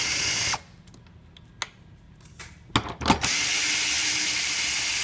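Power screwdriver backing bolts out of the underside of a hydraulic spa bed. It runs steadily, stops about half a second in, clicks a few times as the bit is set on the next bolt, and starts again about three seconds in.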